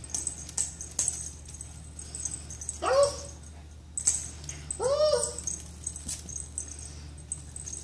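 Two short cries from a pet, each rising and falling in pitch, about three and five seconds in, over the crinkling rustle of a shiny streamer wand toy being batted and bitten.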